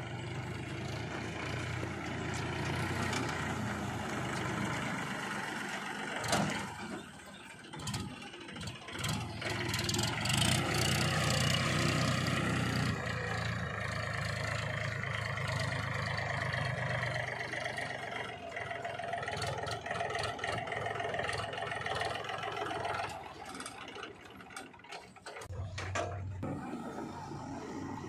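Diesel engines of a JCB 3DX backhoe loader and a Powertrac Euro 50 tractor running, the tractor driving up with its trolley; the engine sound grows louder about ten seconds in, then eases off near the end, with a few knocks early on.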